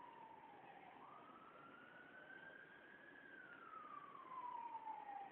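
A faint siren wailing in long, slow sweeps. It falls to its low point about a second in, rises for about two seconds, then falls again.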